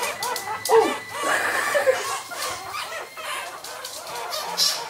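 Young ferret kits squeaking in short, high, bending calls as they crawl about, with scattered light clicks and taps.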